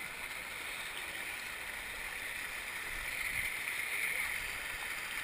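Steady wash of pool water splashing and lapping at the surface, heard from a camera held at the waterline.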